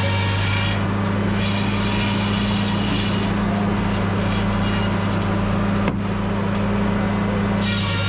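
Stationary engine and circular sawmill running steadily without cutting, a constant low hum, while a sawn wooden slab is dragged off the carriage. A single short knock about six seconds in.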